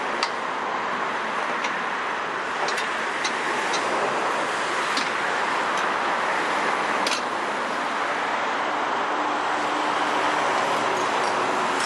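Meiwa MSR5YE walk-behind vibratory roller's small Yanmar diesel engine running steadily, with a few sharp clicks now and then.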